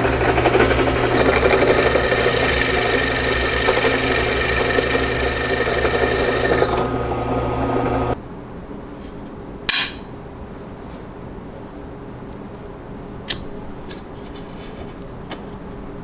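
A power tool motor running steadily under load, then switching off abruptly about eight seconds in, followed by a couple of sharp clicks.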